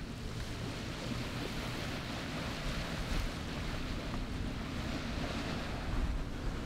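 Steady wind and gentle surf along a sandy shoreline, with wind rumbling on the microphone.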